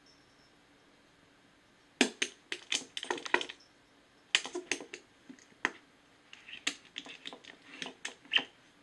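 A cat's paw and claws tapping on the glass-covered face of a framed wall clock lying on the floor: irregular runs of sharp clicks starting about two seconds in, as the cat bats at the butterfly on the second hand.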